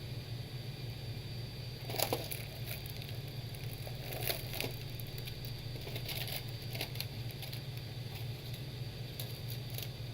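Scattered light clicks and crinkles of small parts and packaging being handled on a workbench, over a steady low electrical hum.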